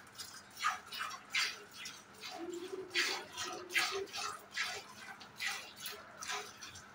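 A cow being milked by hand: jets of milk squirting into a pail in a steady rhythm, about two squirts a second.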